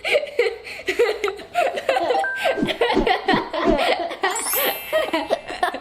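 Children laughing and giggling in short repeated bursts.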